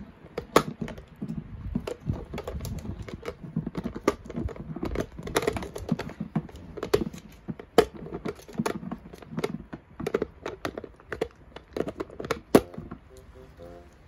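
A Shiba Inu gnawing a hard plastic hot water bottle: irregular clicks and knocks of teeth on plastic, several a second. Music comes in near the end.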